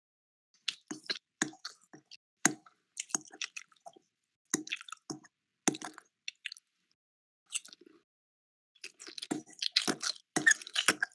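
A person chewing and smacking a mouthful of pasta, making irregular wet squelching clicks that come thick and fast near the end.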